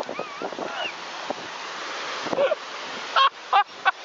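Steady rushing noise like surf or wind on the microphone, with a few short high-pitched cries in the first second and again about three seconds in.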